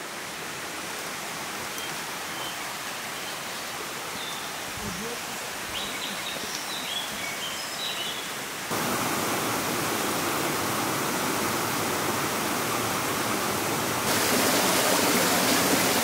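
Rushing water of a fast mountain stream, a steady even hiss that gets louder in two sudden steps, about nine seconds in and again near the end.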